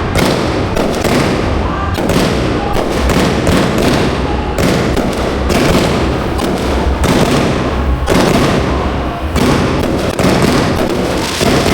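Aerial fireworks display heard close to the firing site: a dense, unbroken barrage of shell launches and bursts, several a second, cracking and booming over a deep rumble.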